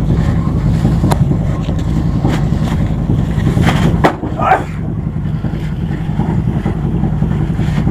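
A boat engine running steadily with a low rumble. A few short knocks and a brief voice come through near the middle.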